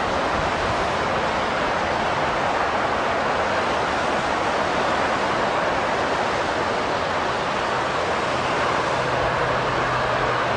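Steady roar of freeway traffic below, constant in level; a faint low hum joins in about seven seconds in.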